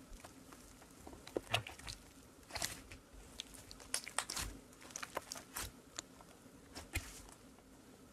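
Soft green slime squeezed and squished between the hands, giving a run of quick, sharp clicks and pops that die away near the end.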